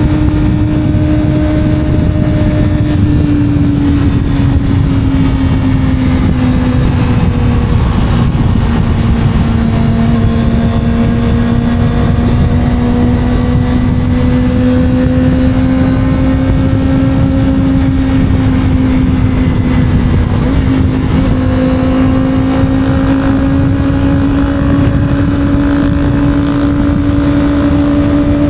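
Kawasaki 250 cc sport bike engine running at a steady cruise. Its pitch sags slightly over the first several seconds, holds, then climbs gradually toward the end, over a steady rush of wind noise.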